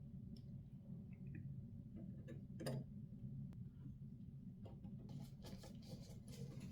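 Faint clicks and light handling of small PC parts, with one sharper tap between two and three seconds in and a patch of rustling, clicking handling near the end, over a low steady hum.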